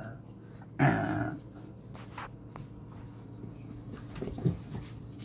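Two dogs playing rough, a husky puppy and a black dog, with a short growl about a second in and a smaller one a little after four seconds, between light scuffling.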